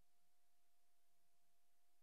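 Near silence: a silent film's empty soundtrack, holding only faint hiss and one faint, steady high tone.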